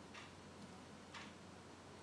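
Near silence: room tone with two faint ticks about a second apart, part of an even ticking about once a second.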